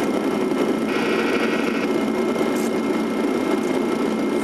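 Steady cockpit noise of an airliner in flight on approach: a constant rush of airflow and engine hum, with a short higher-pitched buzz about a second in.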